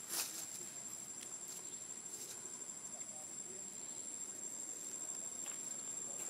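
Insects trilling in a steady high-pitched drone, with a few brief scratchy rustles, the loudest just at the start.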